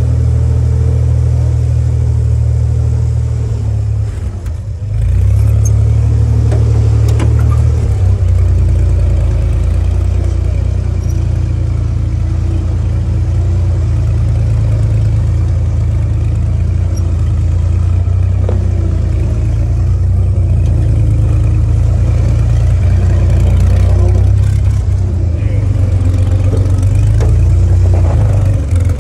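A 1944 Willys Jeep's four-cylinder flathead engine running under load as the jeep drives over a dirt trail, its note rising and falling a little with the throttle. The sound dips briefly about four seconds in.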